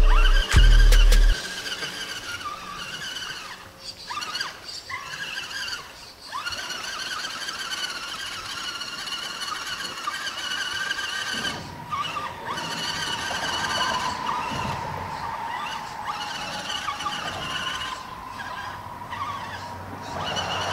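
Radio-controlled scale crawler's electric motor and gears whining as it drives through river water, the high pitch wavering up and down with the throttle.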